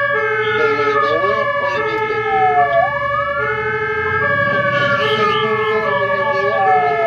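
Fire engine sirens running while under way. One wails, rising quickly and falling slowly about every three seconds, over a second tone that alternates between a high and a low note, with the truck's engine rumbling underneath.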